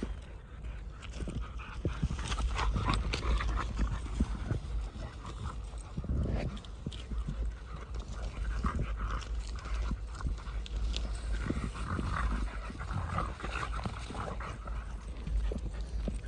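Footsteps and running dogs crunching over dry corn stubble and dead leaves: an irregular patter of crunches and rustles, over a steady low rumble of wind on the microphone.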